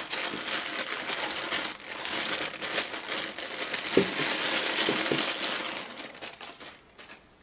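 Clear plastic packaging bag crinkling and rustling as it is worked off a coiled headphone cable, with a few light taps about four seconds in. The crinkling dies away about six seconds in.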